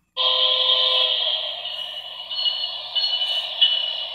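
Locomotive horn sounding a long, steady blast, heard tinny through computer speakers. It starts suddenly just after the beginning and eases off somewhat after about two seconds.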